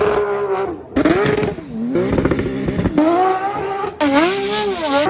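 Porsche flat-six engine revving, its pitch rising and falling, with abrupt jumps in sound about once a second, as if short clips were joined together.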